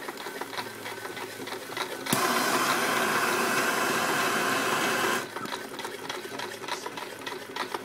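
Homemade Stirling engine prototype running, its flywheel turning and its linkages clicking in a rapid, uneven clatter. About two seconds in, a loud steady hiss starts and cuts off about three seconds later.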